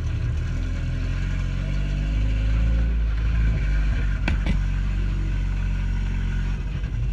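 Car engine running under acceleration, heard from inside the cabin, as the car pulls away and drives on. Two sharp clicks about four seconds in.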